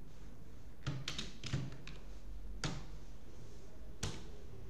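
Computer keyboard keystrokes: a few scattered, sharp clicks as a short phrase is typed, over a steady low hum.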